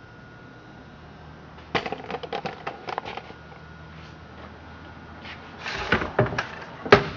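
Knocks and clatter of hard equipment being handled and set down: a quick run of sharp clicks about two seconds in, then a louder jumble of knocks near the end.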